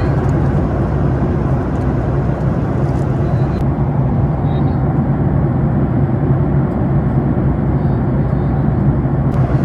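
Steady cabin noise of a Boeing 737 MAX 8 in flight: an even engine and airflow roar with a low hum.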